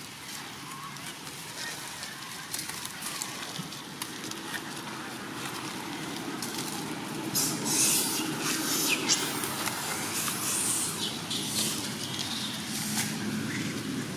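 Rustling and crackling in dry leaves and grass, with a louder stretch of crackling about halfway through.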